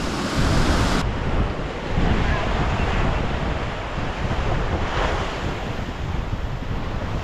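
Wind buffeting the microphone over breaking surf on a beach, a constant rushing noise with heavy low rumble.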